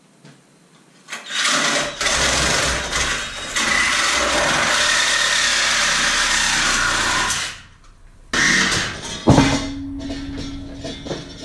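Cordless reciprocating saw cutting through the sheet steel of a truck's front core support, running hard for about six seconds, stopping, then cutting again briefly. Near the end comes a sharp clang that rings on for about a second and a half.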